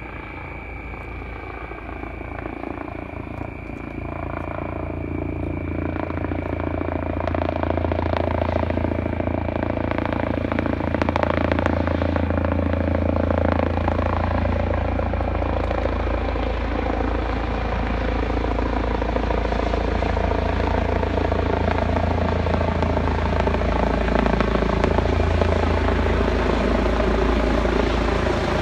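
Eurocopter EC135 rescue helicopter approaching to land, its rotor and turbine sound growing steadily louder over the first ten seconds and then holding, with a stack of whining tones over a low rumble that drift slowly lower in pitch.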